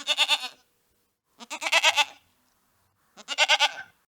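Goats bleating: three quavering bleats, each under a second long, spaced about a second and a half apart.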